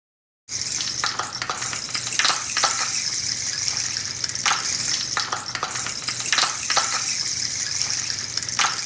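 Rain stick tipped over, its filling cascading down inside in a steady hissing patter like falling rain, with scattered sharper clicks. It starts about half a second in and cuts off suddenly near the end.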